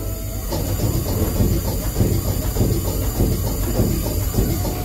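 Twin-cylinder V steam engine running, with a rapid rhythmic knocking of its moving parts over a steady hiss of steam. The knocking sets in about half a second in.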